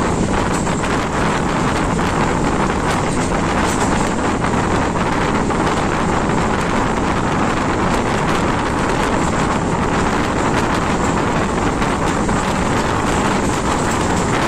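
A passenger train running at speed, its steady rumble mixed with heavy wind buffeting on the microphone.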